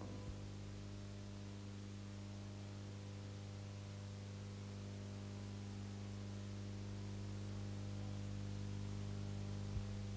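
Steady low mains hum, with a layer of hiss. There is a faint click near the end.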